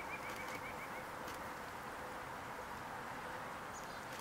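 Steady rush of an open stream flowing over rocks and ice. A brief rapid run of high chirps sounds in the first second.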